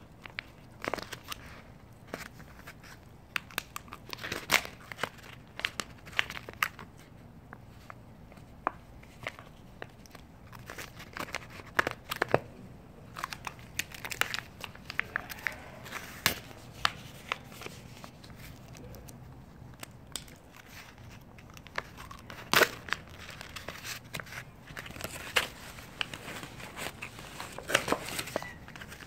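A calico cat chewing and crunching food off the ground: irregular crisp crunches and clicks, with a few louder snaps.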